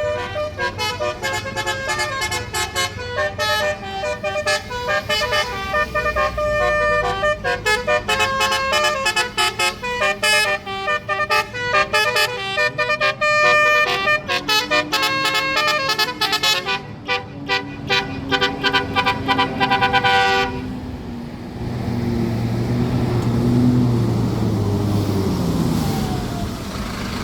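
Bus basuri (telolet) multi-tone air horn playing a fast melody of quickly changing notes, which cuts off abruptly about twenty seconds in. After it stops, a vehicle engine runs with its pitch rising and falling.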